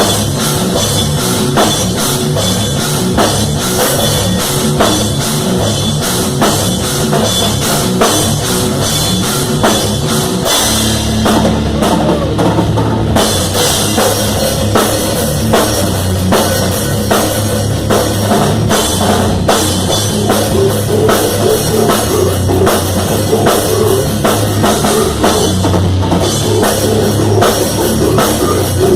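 Rock music driven by a drum kit keeping a steady beat with cymbals; about ten seconds in a heavier bass line comes in under it.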